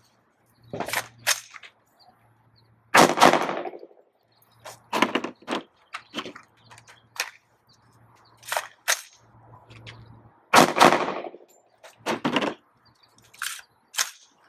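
AR-15-style rifle fired one shot at a time, about a dozen sharp reports spaced irregularly a second or more apart. Two of them, about 3 and 11 seconds in, are the loudest and ring on briefly.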